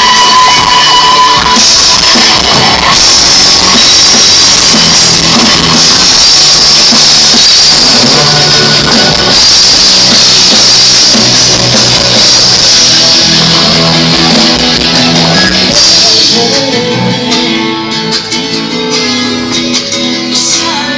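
Live rock band playing loud, with electric guitar and drum kit. About sixteen seconds in the cymbals and drums drop out, leaving sustained guitar and bass notes.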